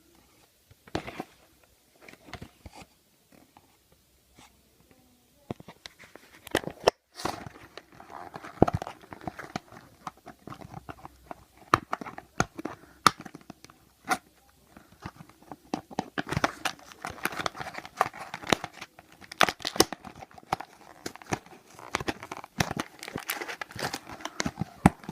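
Toy packaging being torn open and crinkled by hand. A few scattered clicks and rustles come first, then about five seconds in a steady run of crinkling and tearing with many sharp crackles.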